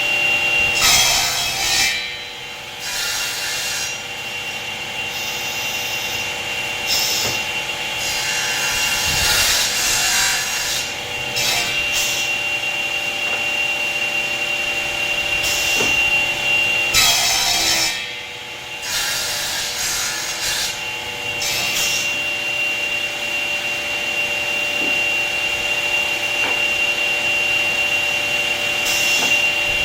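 Four-motor combination woodworking machine running with a steady whine while wood is fed through and cut, the cutting noise surging and easing in repeated passes. The cutting drops away briefly twice, about two seconds in and again around eighteen seconds.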